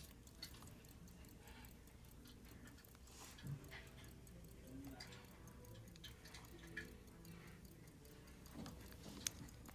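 Faint ticking of an Elgin 18-size 7-jewel pocket watch movement running, with a few light handling sounds from fingers on the polished case.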